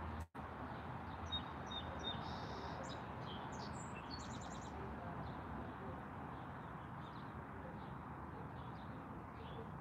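Small birds chirping in short high notes, a cluster of them in the first half and a few fainter ones near the end, over a steady outdoor background hiss. The sound cuts out completely for a moment just after the start.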